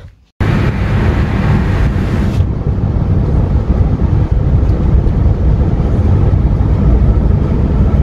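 Two motorcycles running, a loud steady roar that sounds like an airplane, starting abruptly about half a second in.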